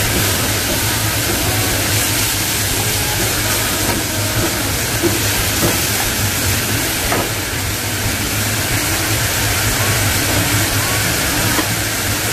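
Chicken pieces sizzling in hot oil in a small pot, a steady hiss, as they are stirred with a ladle, with a few light knocks of the ladle against the pot. A steady low hum runs underneath.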